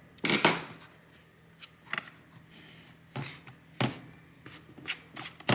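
Plastic laptop display bezel being pressed back on by hand, its clips clicking and snapping into place: a series of sharp, irregular clicks, several of them in quick pairs.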